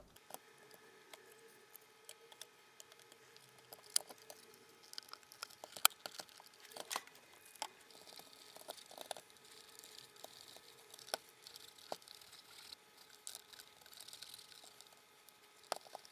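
Light handling noises from plastic projector parts: scattered small clicks and taps, with one sharper click about six seconds in.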